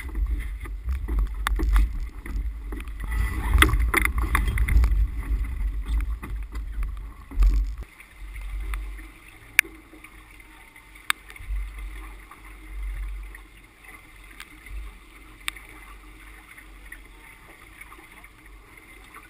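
Wind buffeting the camera microphone and water rushing along the hull of a sailboat under way in rough weather. The sound is loud and gusty with knocks for the first eight seconds or so. It then turns quieter, with intermittent gusts and a few sharp clicks.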